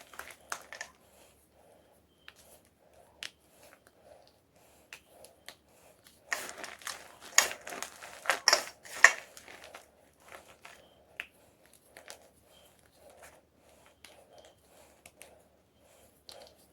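Homemade gym chalk crunching: scattered small crackles, then a run of loud, sharp crunches about six seconds in lasting some four seconds, then softer, evenly repeated crunching.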